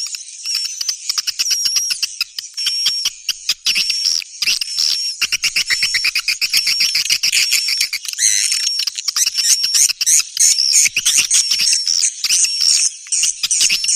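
Edited birdsong lure recording: a dense, rapid chatter of high chirps and ticks with short whistled notes repeated over and over, growing busier about halfway through.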